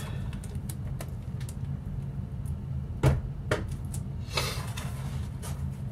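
Handling of a plastic-backed pen display and its metal stand: a couple of sharp knocks about three seconds in and a brief rustle of packing a second later, over a steady low hum.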